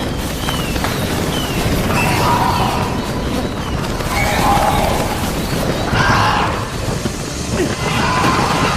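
Dense action-film sound effects: continuous crashing and booming, with a run of short falling whistles in the first few seconds and brief voices crying out.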